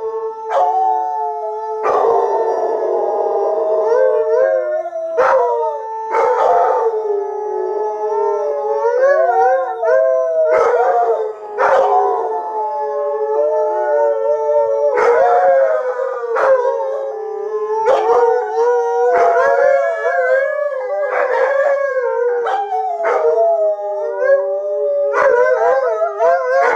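Three Alaskan Malamutes howling together in a sustained chorus. Their overlapping voices waver and slide up and down in pitch, with short sharp yips breaking in here and there.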